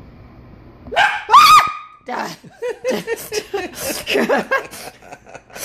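A short, loud high-pitched cry about a second in, followed by several seconds of quick, breathy laughter.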